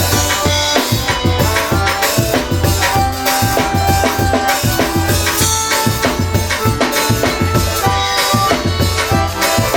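Forró band playing an instrumental passage: accordion melody in held notes over a steady, even drum beat with a shaker.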